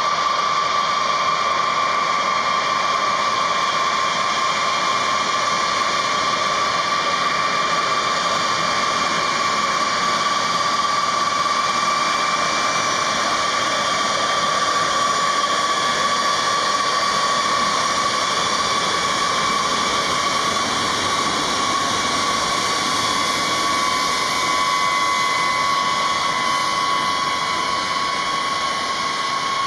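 Boeing B-52H Stratofortress's eight TF33 turbofan engines running at taxi power: a steady jet rush with a strong high whine that drifts slightly lower near the end.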